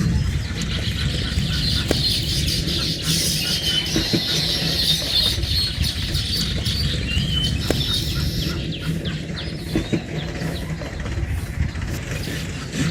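Small birds chirping and twittering over a steady low rumble.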